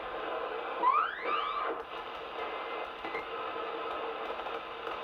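CB radio receiver hissing with static through its speaker. About a second in, a whistling tone slides quickly upward.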